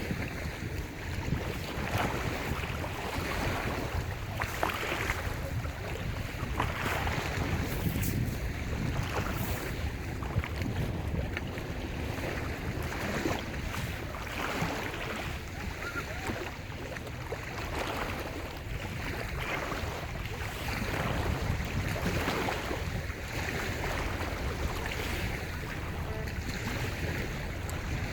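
Small lake waves breaking and washing on the shore, a new wash every second or two. A steady low rumble of wind on the microphone runs underneath.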